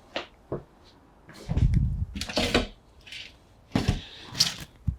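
Scattered plastic clicks and knocks from handling the drain-pump filter cap and front kick-panel cover of a Bosch front-load washing machine, with a dull thump about a second and a half in.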